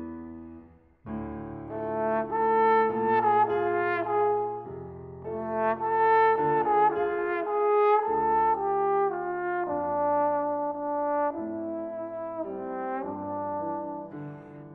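Trombone with grand piano accompaniment: the piano's phrase ends, and after a brief pause about a second in the trombone enters, playing a melody in long held notes over the piano.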